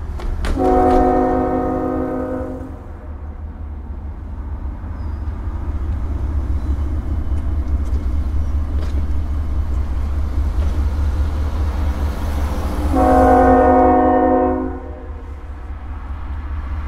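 Diesel freight locomotive air horn blowing for grade crossings: two long blasts of about two seconds each, one about half a second in and another around thirteen seconds in, over a steady low rumble.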